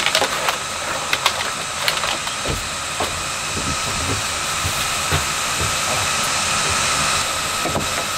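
A steady high hiss of outdoor background noise, with a run of knocks and clicks in the first couple of seconds as chairs are pushed back and people get up from a table, and a few scattered knocks later as someone moves about a wooden hut.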